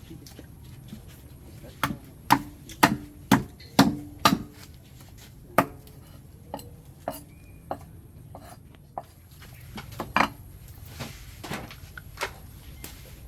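Knife chopping food on a cutting board: a run of about seven sharp chops, roughly two a second, then scattered lighter cuts and taps.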